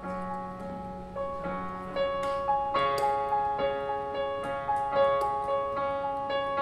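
Yamaha digital piano playing held chords, with new notes coming in every second or so.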